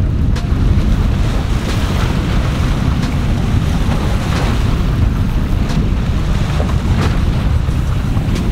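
Wind buffeting the microphone in a steady low rumble, with waves washing against the jetty rocks.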